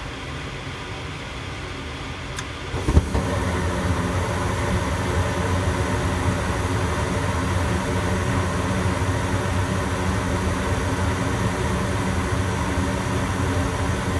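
Goodman gas furnace firing up: a steady fan hum, a click about two seconds in, then a thump as the burners light about three seconds in, after which the furnace runs louder and steadily. The flame stays lit, a sign that the cleaned flame sensor is now proving the flame.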